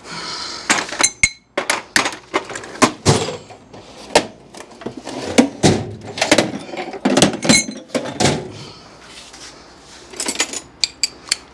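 Irregular metal clanks and knocks of wrenches and sockets working on the top bellhousing bolts between the engine and the transmission, some strikes ringing briefly. A quick cluster of sharper clicks comes near the end.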